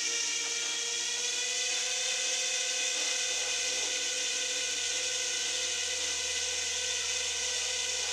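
Small electric motor and rotors of a remote-control helicopter whirring steadily with a high hiss, the pitch rising slightly about a second in.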